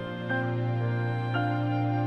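Slow, gentle music with sustained notes that change about once a second.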